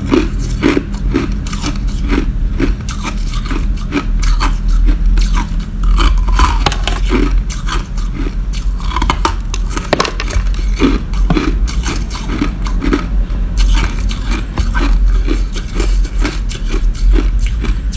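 Crushed ice being bitten and chewed: a dense, continuous run of sharp, crisp crunches.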